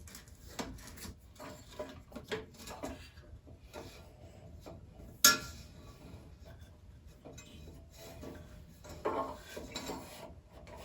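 Hand work on a Craftsman bandsaw's upper wheel as the old rubber tire is worked off it: scattered small clicks, scrapes and rubbing. There is one sharp knock about five seconds in, and more rubbing near the end.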